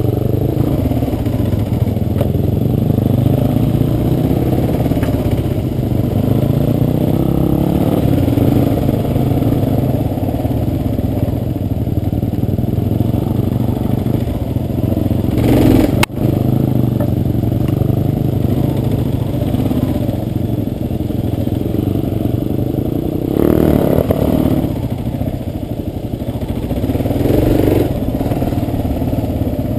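Kawasaki KLR650's single-cylinder four-stroke engine running at low trail speed, with the throttle opening up in a few short surges. There is one sharp click about halfway through.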